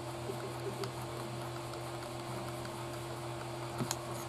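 Steady low electrical hum of room tone with faint scattered small ticks, and two sharper light clicks near the end.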